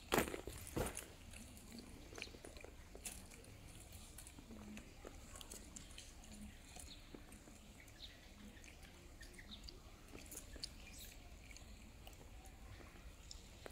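Macaque chewing food: faint, scattered wet smacks and clicks, after two louder knocks in the first second.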